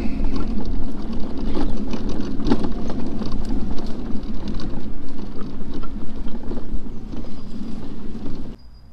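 Off-road mobility scooter driving over rough, bumpy grass and mud: a steady low rumble of tyres and drivetrain with frequent knocks and rattles from the bumps, cutting off sharply near the end.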